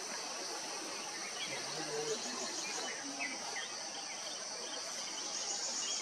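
Steady high-pitched insect chorus, swelling near the end, with short bird chirps several times.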